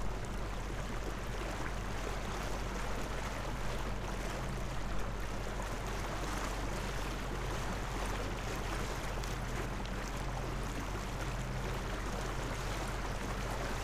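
Narrowboat moving slowly on a canal: a steady hiss of water moving past the bow over the faint, even low hum of the boat's engine.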